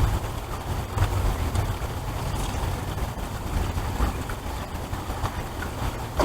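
Heavy rain pouring down, a steady hiss with scattered small taps, over a low rumble of wind buffeting the microphone.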